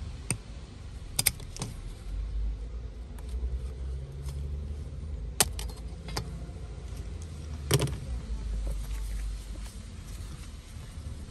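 Small sharp metallic clicks and taps, a handful spread out with the loudest about a second in and near the end, as a screwdriver pries at a metal shield can and it comes off a logic board. A low steady hum runs underneath.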